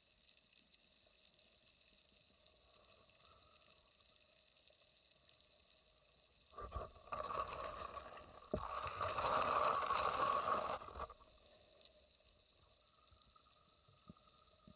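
Underwater scraping and rustling as the speargun-mounted camera brushes through seagrass blades, loud from about six and a half to eleven seconds in, with a sharp knock near the middle. Around it there is a faint steady whine.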